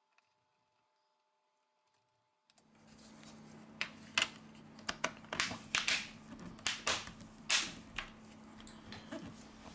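Near silence for about two and a half seconds, then a steady low hum with a run of sharp clicks and taps: small tools and the plastic parts of a Xiaomi Redmi 8A smartphone being handled as the phone is reassembled.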